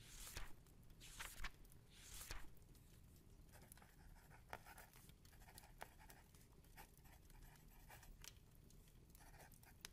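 Faint scratching and rustling of paper: three short swishes in the first two and a half seconds, then a few soft scattered clicks over quiet room tone.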